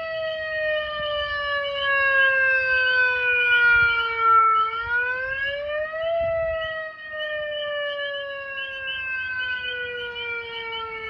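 Megaphone playing a tornado-siren wail. The pitch falls slowly for about four and a half seconds, rises again in the middle, then falls slowly once more.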